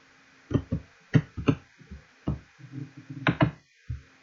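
Irregular clicks and taps from a computer mouse and keyboard, about ten sharp ones in four seconds, some in quick pairs.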